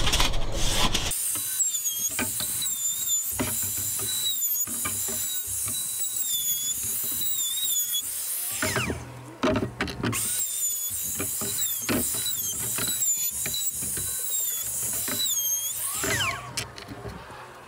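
Handheld electric router running at high speed while easing the edges of a plywood board, a high whine that dips in pitch each time the bit bites into the wood. It winds down about halfway through, starts up again a second later, and winds down again near the end.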